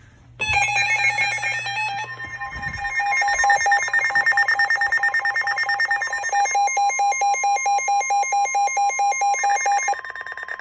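Weather radio alert for a new severe thunderstorm warning: a steady alarm tone with a fast electronic beeping laid over it, about four beeps a second. The beeping stops near the end while the steady tone runs on.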